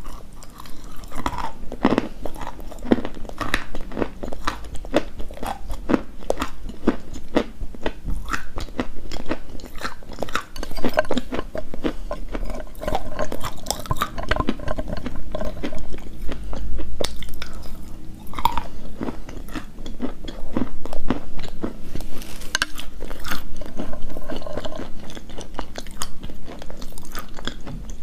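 A person biting and chewing crunchy chalk, a dense run of crunches and crackles throughout.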